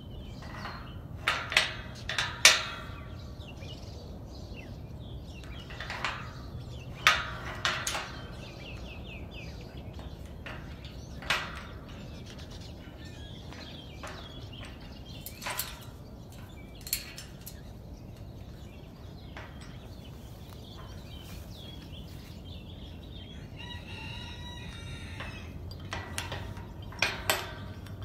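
Metal latch hardware on a tubular steel farm gate clinking and rattling as a cockatoo picks and pulls at it with its beak. The clinks come in scattered clusters, a bunch in the first few seconds, more around seven seconds in and again near the end, with quieter stretches between.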